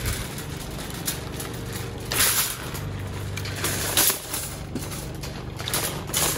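Empty wire shopping trolley rolling over asphalt and being pushed into a row of nested trolleys, its metal frame and wheels rattling, with three louder clattering clanks as it knocks into the line: about two seconds in, at four seconds, and near the end.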